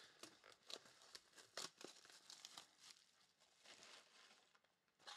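Faint crinkling, rustling and tearing of plastic shrink-wrap as a sealed Panini Mosaic trading card box is cut open and handled, with scattered light crackles.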